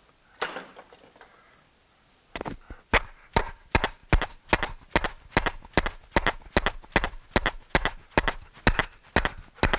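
Even knocking, about two or three blows a second, as a wooden foot is tapped home into its joint on a turned table pedestal. A brief scrape of wood on wood comes about half a second in, before the knocking starts.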